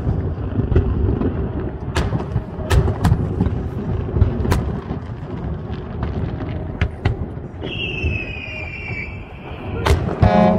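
Fireworks display: aerial shells bursting in a string of sharp bangs over a continuous low rumble, with a high, slightly falling whistle about three-quarters of the way through.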